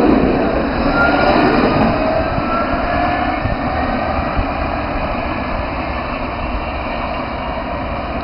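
Alstom Citadis 302 tram pulling away and receding, its running noise slowly fading. Faint rising whines come from the traction motors as it gathers speed in the first few seconds.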